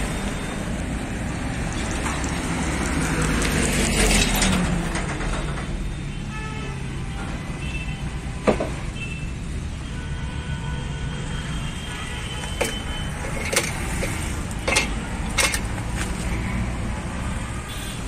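A motor vehicle passes, its engine growing louder to a peak about four seconds in and then fading over a steady traffic rumble. In the second half, a handful of sharp metal clinks come as truck differential parts are handled.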